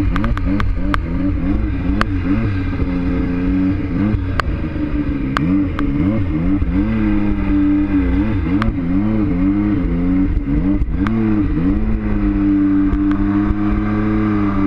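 1115cc Impulse-turbocharged Yamaha Nytro snowmobile engine, a four-stroke triple, revving up and down again and again as the rider works the throttle through the snow, then holding a steady high-rev note for the last couple of seconds. Occasional sharp clicks cut through it.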